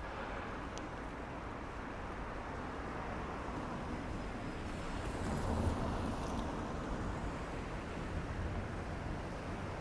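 City street traffic: a steady rumble of road vehicles that swells as one passes about halfway through.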